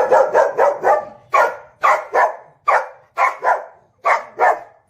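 A dog barking repeatedly: about ten short, loud barks, several in quick pairs, stopping shortly before the end.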